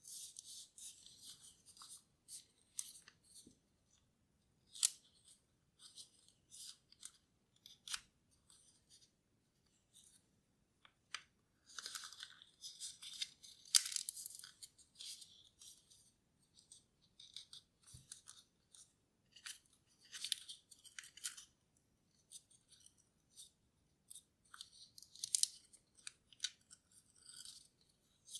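Origami paper crinkling and rustling as a folded paper model is pinched and creased by hand: irregular crisp crackles with sharp snaps, in clusters that are busiest around the middle and near the end.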